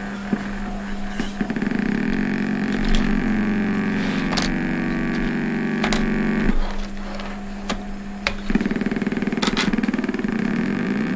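littleBits Synth Kit oscillator playing through its small speaker module: a steady buzzy drone around 200 Hz. It cuts out about six and a half seconds in and comes back about two seconds later, with sharp clicks as the modules are handled.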